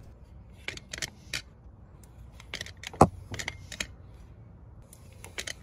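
Pistol-grip grease gun being pumped by hand into the grease fitting of a John Deere mower-deck pulley spindle: a run of small, irregular metallic clicks, the sharpest about three seconds in, as grease goes in against light back pressure.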